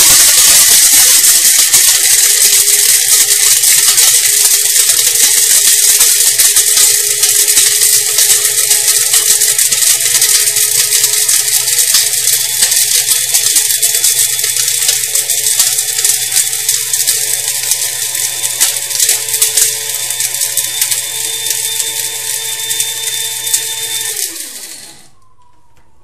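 Krups F203 electric blade grinder running, its stainless steel blades smashing cinnamon sticks into powder with a loud, dense rattle that slowly gets quieter as the pieces break down. Near the end the button is let go and the motor winds down with a falling whine.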